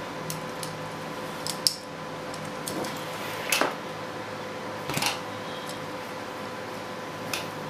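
A handful of sharp clicks and knocks from handling a cordless cellular shade's headrail and lift-cord spools while winding its springs by hand, over a steady background hum.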